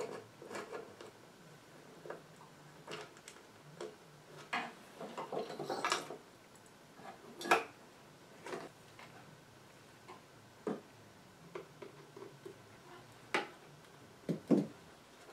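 Scattered light clicks, taps and knocks of a hand driver, wires and small metal parts being worked while a 1920s battery radio is taken apart by hand, with a few sharper knocks. Near the end the front panel knocks against the wooden cabinet as it is lifted out.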